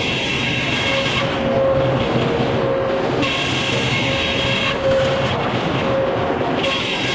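Sawmill machinery running with a steady mechanical din. A higher hiss rises and falls away three times, about every three seconds.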